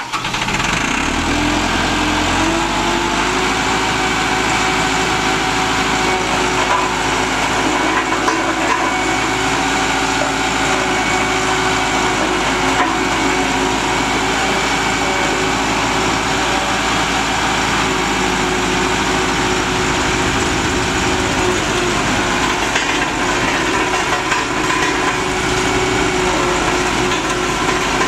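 Diesel engine of a 1988 Caterpillar CS-433B vibratory drum compactor, running loudly. It rises in pitch over the first couple of seconds and then holds a steady speed.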